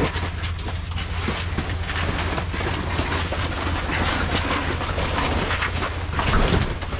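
Wind rumbling on the microphone, with the fabric walls of a pop-up ice-fishing shelter rustling and crackling as a man pushes about inside it.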